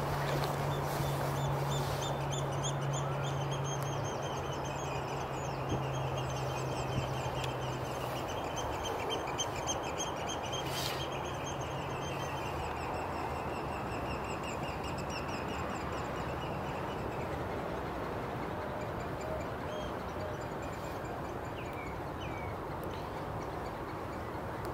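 A flock of Eurasian oystercatchers piping: a dense run of rapid, shrill calls that fades out about two-thirds of the way through, with a few scattered chirps near the end. Under it runs a steady background hiss, and a low hum sounds for the first third.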